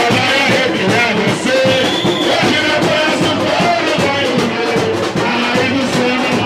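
Live samba: a lead voice singing into a microphone over a steady percussion beat and a strummed cavaquinho, played loud and continuous through a PA.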